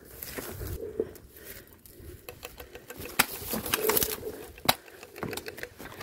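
Gel blaster shots: a few sharp cracks, the loudest about three and four and a half seconds in, over rustling from movement through brush.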